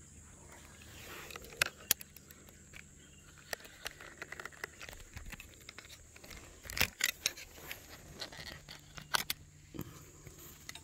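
Handling noise close to the microphone: scattered clicks, taps and rustles as the bow and phone are moved, with a cluster of sharper knocks about seven seconds in.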